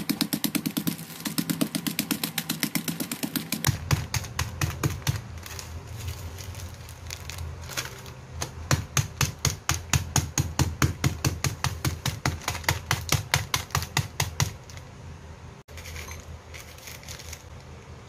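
Oreo cookies being crushed with rapid, repeated pounding knocks, several a second, which stop shortly before the end.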